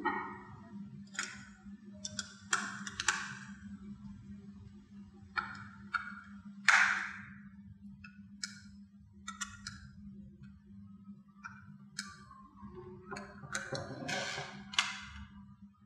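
Irregular small clicks, taps and knocks of a screwdriver and hands working on a plastic dimmer housing with its cable wired in, over a steady low hum. The loudest knock comes about two-thirds of the way in.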